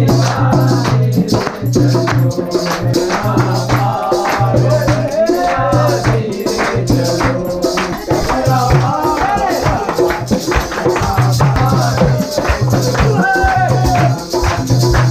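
Himachali folk song sung live by a group of men, over a steady, rhythmic percussion beat.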